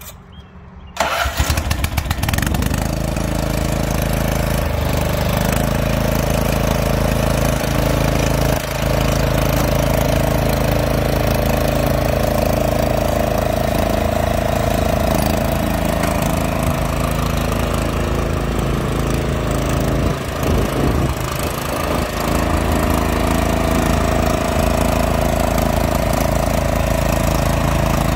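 Cub Cadet CC760 ES self-propelled walk-behind mower engine started after about a second of near silence, catching after brief cranking. It then runs steadily, its note dipping briefly twice.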